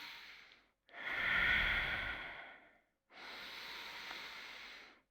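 A woman's deep, slow yoga breathing close to the microphone. There are two long breaths of about two seconds each, the first louder and more rasping than the second.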